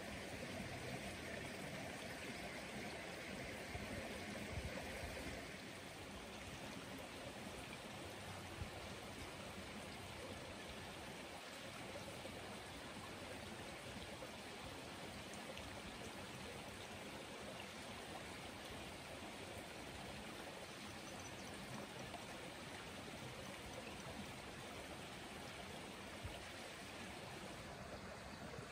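Steady, soft outdoor background noise, an even rush with no single clear source, a little louder in the first few seconds.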